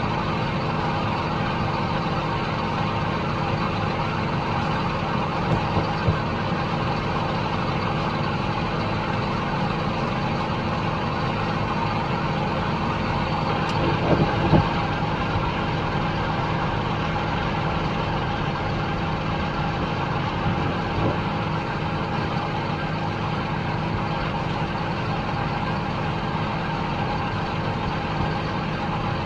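Heavy harvest machinery running steadily: a constant engine and drivetrain drone with a few steady tones, and a couple of brief knocks, about six seconds in and again around the middle.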